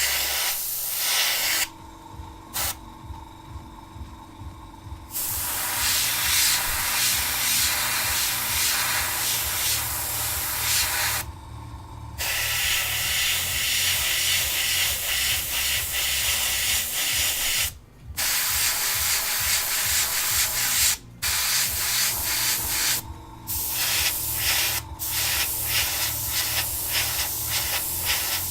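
Paint being sprayed in long hissing passes that stop and start, with a pause of a few seconds near the start, then a run of short, quick spurts near the end. A low, steady pulsing hum runs underneath.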